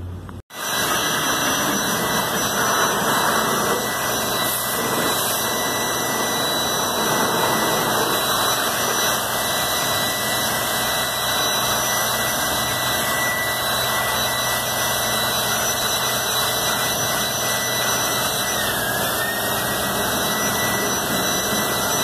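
Pressure washers spraying water onto window air-conditioner coils: a steady hiss of the water jets with a thin high whine from the machines, starting abruptly about half a second in.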